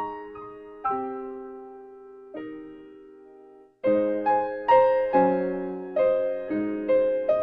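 Solo piano music: slow chords and single notes struck and left to fade. It stops for a moment just before four seconds in, then picks up louder with quicker notes.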